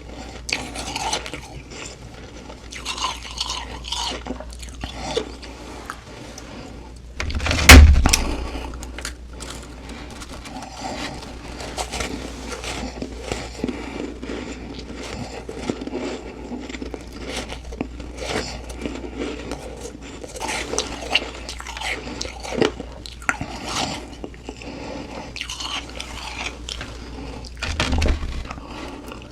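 Close-up biting and chewing of humidifier frost ice: an uneven run of crunches throughout, with one very loud crunching bite about eight seconds in and another louder one near the end, over a low steady hum.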